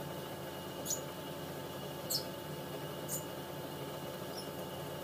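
Japanese spitz puppy chewing on a crisp piece of green vegetable: three short, sharp, high crunches about a second apart, with a fainter one near the end, over a steady background hum.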